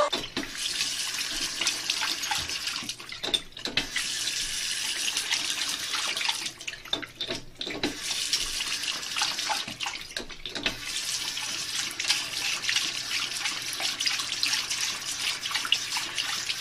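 Bathroom sink tap running, water splashing steadily into the basin while a dog paws at the lever handle; the flow drops out briefly a few times.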